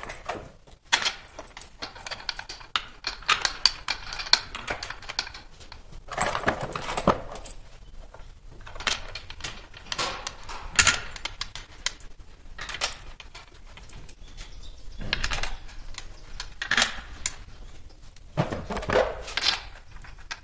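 Steel bolts clinking and rattling as they are handled and dropped into the bolt holes around a transmission case flange, in irregular bursts of small metallic clicks.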